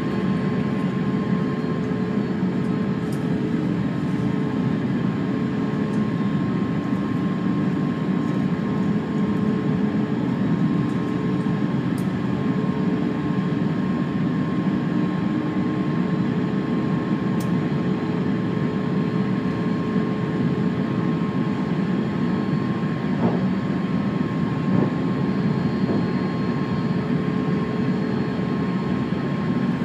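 Steady cabin drone inside a JAL Airbus A350-900 on the ground before takeoff, its Rolls-Royce Trent XWB engines running, with a thin whine held on one note throughout. A lower hum fades out about three quarters of the way in, and there are a few faint ticks.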